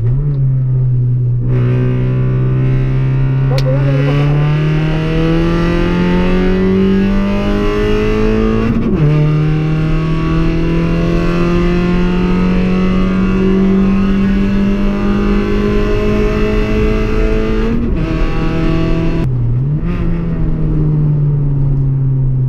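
Car engine under hard acceleration on a track. Its pitch climbs steadily, drops sharply at a gear change about 9 seconds in, then climbs again. Near the end the engine comes off the throttle, dips briefly and settles to a steady lower note.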